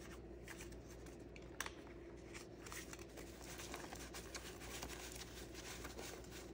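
Paper banknotes rustling and flicking softly as a handful of dollar bills is sorted and fanned out, with one light tap about a second and a half in.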